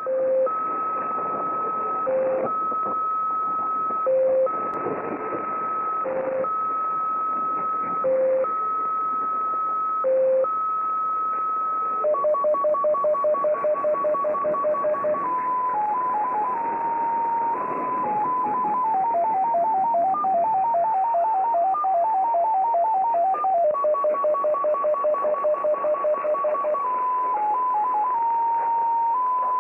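XPA Russian MFSK number station on shortwave, heard through a TS-570 receiver in upper sideband over steady band hiss. It opens with its start tones: a long high tone and a short low tone repeating about every two seconds. About twelve seconds in, these give way to rapid tones stepping between several pitches: the sync and data blocks.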